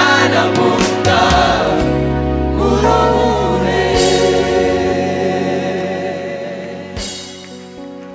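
Rwandan gospel choir singing with instrumental backing. The voices thin out about halfway, leaving held chords that fade away, with two high shimmering washes, one about halfway and one near the end.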